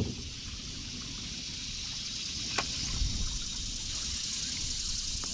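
Faint trickling and lapping of river water around a kayak over a steady high hiss, with a single light click about two and a half seconds in.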